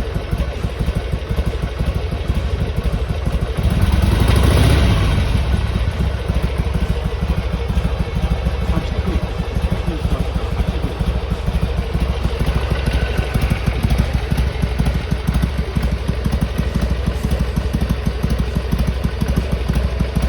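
Harley-Davidson Sportster XL883R's air-cooled V-twin idling with an even, fast pulse while warming up, swelling briefly about four seconds in.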